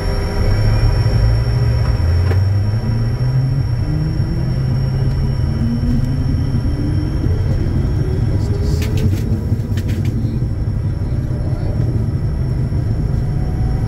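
Bombardier Challenger 350 business jet gathering speed on its takeoff roll: a loud, steady rumble with tones that rise slowly in pitch. A few brief clicks come about two-thirds of the way through.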